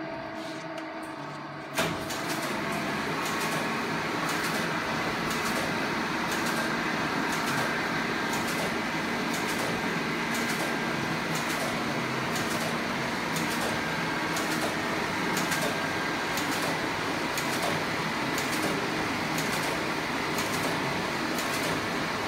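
Rebuilt Turing bombe code-breaking machine, its electric motor turning the rows of rotor drums, starting up about two seconds in and running steadily with a regular clicking over the drive noise. It has been restarted from its last stop to search for the next possible Enigma setting.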